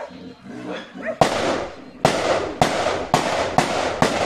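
A rapid string of six loud, sharp bangs, about half a second apart, starting about a second in, each trailing off in a short echo.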